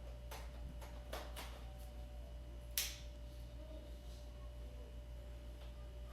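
Canon EOS 90D body and EF-S 18-55 kit lens being handled while the lens is mounted, with a few soft clicks and rustles, then one sharp click just under three seconds in, over a steady low hum.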